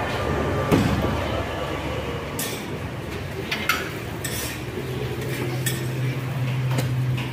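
A metal ladle clinks once against a curry pot, then a clear plastic bag crinkles in short rustles as it is filled with gravy and twisted shut. A steady low hum starts about five seconds in.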